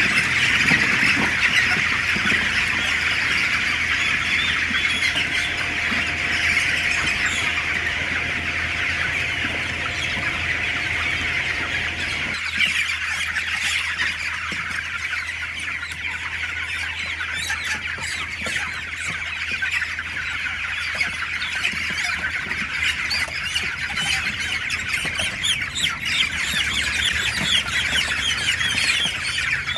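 A large flock of young chickens peeping and chirping all at once, a dense, continuous high-pitched chorus.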